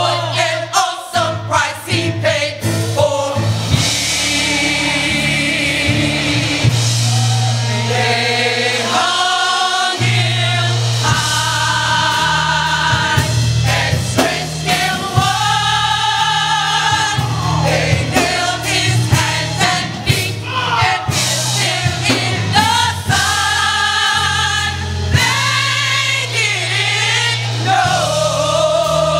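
Gospel choir singing over accompaniment with long held bass notes. A run of sharp knocks comes in the first few seconds.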